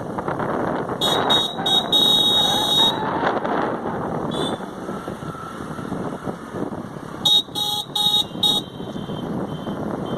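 Vehicle horn honking over a steady rushing road noise. There is a long honk starting about a second in that lasts about two seconds, and a run of four short beeps near the end.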